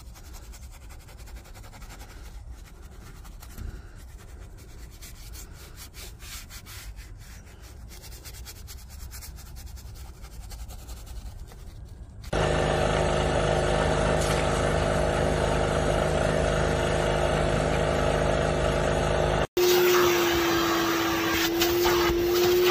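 Detailing brush scrubbing a foamed steering wheel: soft, quick rubbing strokes. About halfway through, a much louder steady machine drone cuts in, and near the end the sound switches to an upholstery extractor's vacuum motor running with a steady whine as its nozzle is drawn over a fabric car seat.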